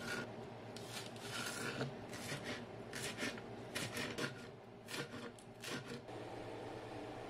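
Knife chopping vegetables (carrot, then green onion) on a wooden cutting board: irregular sharp chops, some in quick pairs. The chopping stops about six seconds in, leaving only a faint steady hiss.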